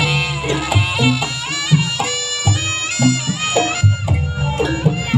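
Jaranan ensemble music: a reed wind instrument, the slompret (Javanese shawm), plays a bending melody over repeated drum and low gong strokes.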